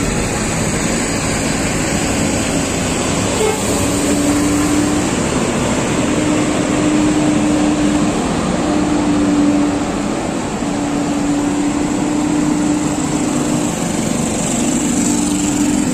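Vehicle engines on a rain-wet road under falling rain: a coach bus pulling away, with an even hiss throughout. From about three and a half seconds in, a steady engine hum comes and goes.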